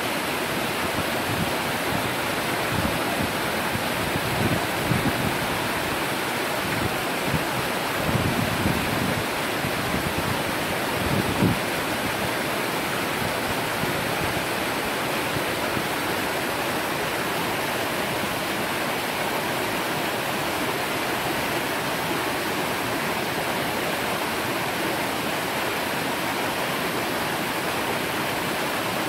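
Mountain stream rushing over rocks and through small rapids, a steady wash of water noise. A few soft low thuds come in the first dozen seconds.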